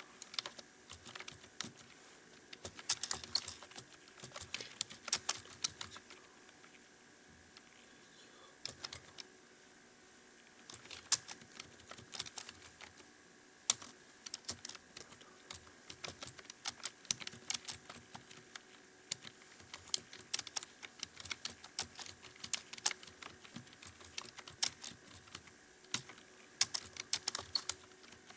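Computer keyboard being typed on fast in irregular runs of key clicks, with a couple of short pauses a third of the way in, over a faint steady hum.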